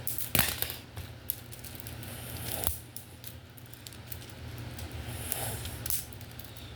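Homemade Lego butterfly knife being flipped and handled: plastic handles clicking and rattling, with a few sharp clicks, the loudest about half a second in.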